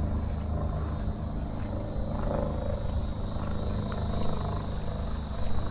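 Small propeller-driven experimental plane flying overhead, its engine giving a steady droning hum, with insects buzzing steadily in the background.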